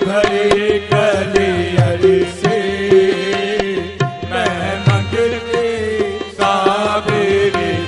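Qawwali music: tabla beating steadily, the bass drum's pitch bending down on some strokes, under a held harmonium line, with singing in places.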